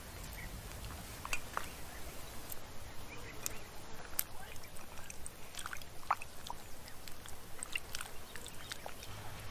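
Hands squeezing and kneading wet caul fat in an enamel bowl: soft squelches and small scattered wet clicks and drips.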